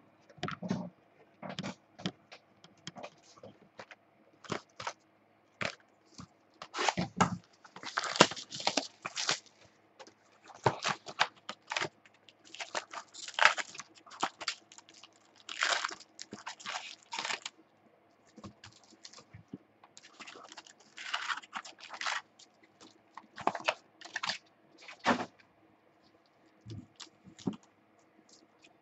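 Packaging of a box of trading-card packs being torn open and handled: short, irregular bursts of tearing and crinkling with pauses between them.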